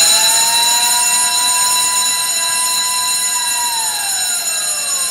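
An electric siren sounding a steady wail over several steady high-pitched tones, its pitch falling as it winds down near the end.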